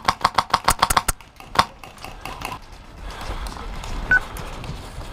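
Airsoft rifle firing a rapid string of shots, about eight or nine a second, stopping after about a second, with one more shot half a second later. A brief high chirp comes about four seconds in.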